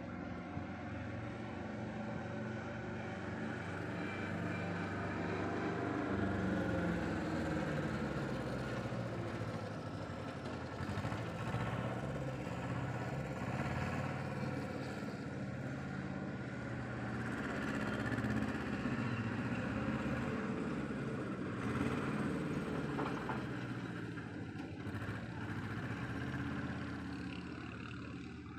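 Road traffic: the engines of passing vehicles, swelling and fading as each goes by.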